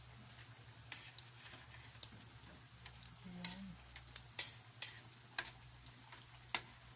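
Kitchen tongs clicking and scraping against a wok as squash fritters are turned in hot oil, over a faint sizzle of frying. The sharp clicks come irregularly, the loudest near the end.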